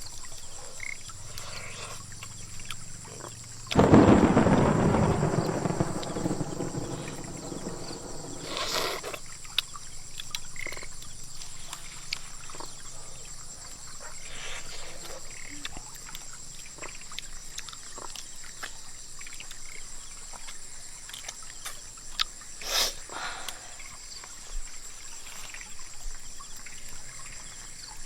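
A sharp, close thunderclap about four seconds in that rumbles away over the next several seconds. Behind it runs steady rain noise, with frogs croaking now and then.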